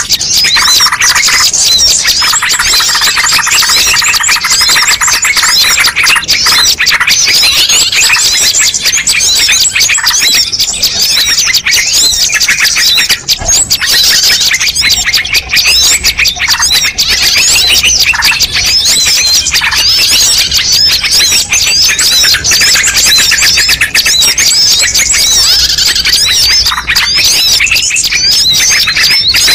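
Loud, dense chorus of many small songbirds chirping, twittering and trilling over one another without a break: a mixed bird-lure (pikat) call recording.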